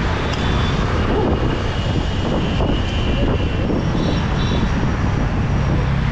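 Wind rumbling on the microphone of a moving rider, over steady road traffic noise, with faint thin high-pitched tones partway through.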